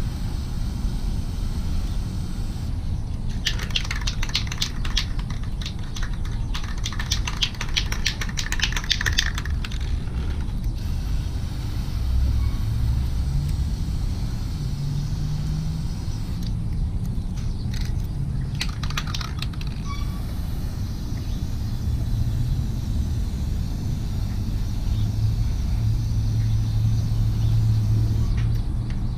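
Aerosol chain wax hissing onto a motorcycle drive chain in two long bursts, one a few seconds in and one about two-thirds through, over a steady low rumble.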